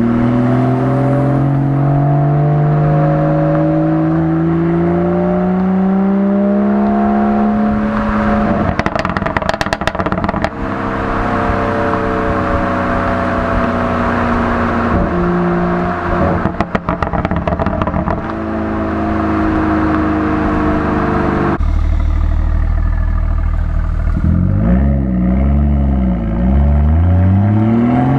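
BMW 440i's B58 turbocharged straight-six with the M Performance Power and Sound Kit, its revs climbing steadily through the first several seconds and then holding. There are bursts of exhaust crackles and pops about nine seconds in and again around seventeen seconds. Near the end the revs rise and fall a few times.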